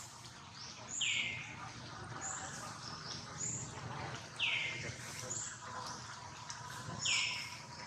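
Birds calling: one bird gives a downward-sweeping call three times, about every three seconds, and short high chirps come roughly once a second between them.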